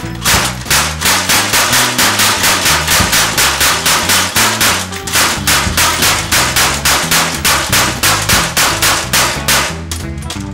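Hand-cranked Gatling gun firing a fast, even string of shots, about four a second. There is a brief break about five seconds in, and the firing stops shortly before the end.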